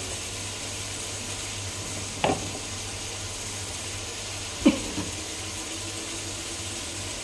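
Fish stomach and garlic sizzling steadily in a frying pan, with two sharp knocks of a utensil, about two seconds in and again near the middle.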